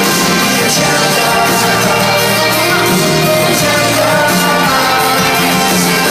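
Live rock band playing loudly and steadily in a large arena, with singing over it. It is heard from among the audience.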